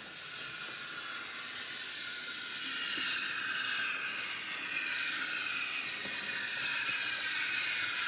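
Dapol GWR Large Prairie model locomotive running with its LokSound DCC sound decoder playing steam-locomotive sound through its small smokebox speaker, mixed with the model's running noise on the track. The sound is high-pitched and grows steadily louder as the loco approaches.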